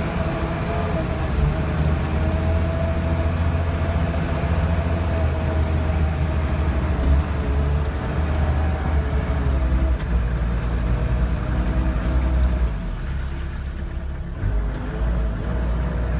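SHERP amphibious ATV's diesel engine running steadily, heard from inside the cab. Its low note drops about thirteen seconds in and picks up again a second or so later, as the vehicle comes out of the water onto the bank.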